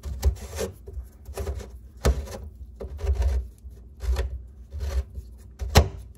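A loose kitchen sink basket strainer being twisted and wiggled by hand from below, making about eight irregular knocks and short scraping rubs as it shifts in the sink opening.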